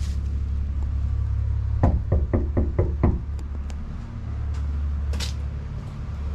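Knuckles knocking on a front door: six quick raps in a row about two seconds in, over a steady low rumble.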